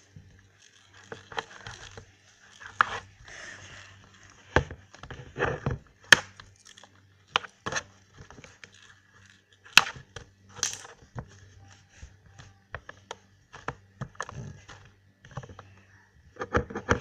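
Hands and a small plastic toy roller working slime on a plastic tabletop: irregular sharp taps and slaps, with soft handling noise in between.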